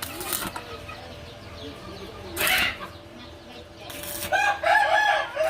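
A chicken clucking, with a short noisy flurry about two and a half seconds in, like wing flaps. A quick run of pitched clucks near the end is the loudest part.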